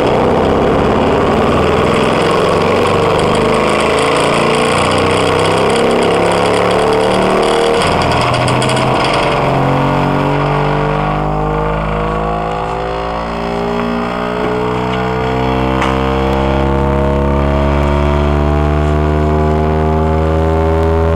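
Pioneer subwoofer driver overdriven hard enough to burn it out: a harsh, heavily distorted buzz for the first eight seconds or so, then a slowly rising tone full of distortion overtones.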